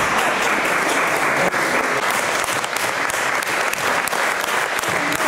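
Audience applauding: many hands clapping at once, steadily.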